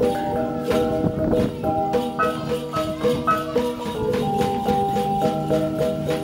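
Bahnar cồng chiêng gong ensemble playing: a row of bossed gongs hung from a bamboo pole, each player striking his own gong in an interlocking rhythm. Each gong rings its own pitch, and the tones overlap in a repeating melodic pattern.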